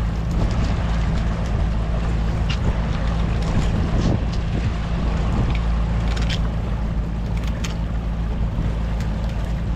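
Boat engine running steadily with a low hum, under wind buffeting the microphone and the rush of water. A few light clicks sound here and there.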